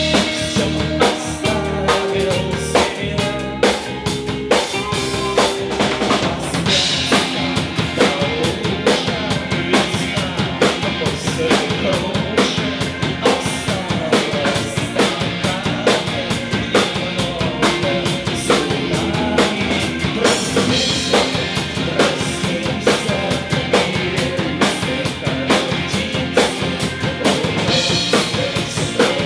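Live band playing an instrumental passage with no vocals, a drum kit with snare and bass drum keeping a steady beat under pitched instruments.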